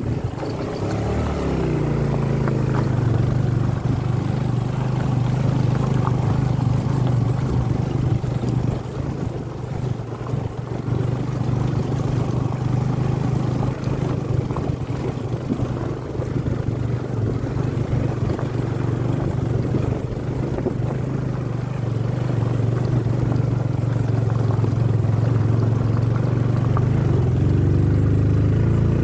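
Motorcycle engine running steadily while riding, with wind and road noise. The engine note rises about a second in.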